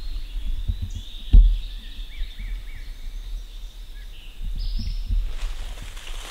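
Woodland birds singing short high phrases, with a sharp low thump about a second and a half in. From about five seconds in, footsteps swish through leaf litter and undergrowth.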